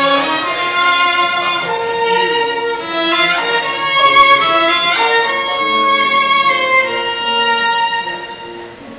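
Violin playing a melody, with held notes and slides between pitches, fading down near the end.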